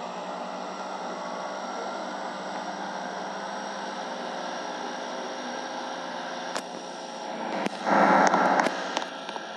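Air conditioner running with a steady hum and a constant low tone. About eight seconds in, a louder rush of noise comes in for roughly a second and a half.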